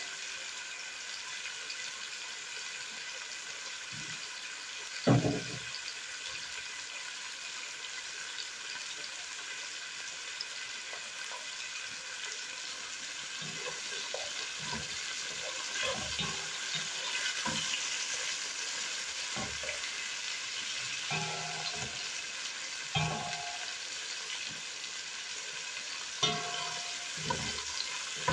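Diced carrots, bell peppers and onion sizzling in hot oil in a pan, with a steady frying hiss. A spatula stirs them and knocks against the pan now and then, loudest about five seconds in.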